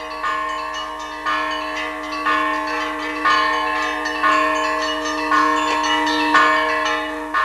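Orthodox church bells rung by hand from the belfry, with a strike about once a second and the tones ringing on and overlapping.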